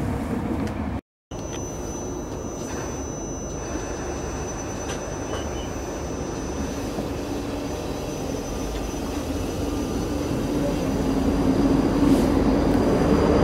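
South Western Railway Class 458 electric multiple unit pulling out of the platform. Its traction motors whine in a tone that rises in pitch and grows louder as it picks up speed, over the rumble of the wheels on the rails.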